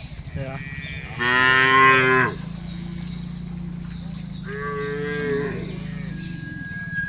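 Cattle mooing: one loud, long moo about a second in, then a second, quieter moo around the middle, over a steady low hum.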